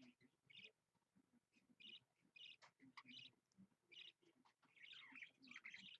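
Pet budgerigar softly chirping and chattering in short, repeated calls, running into a quick warble about five seconds in.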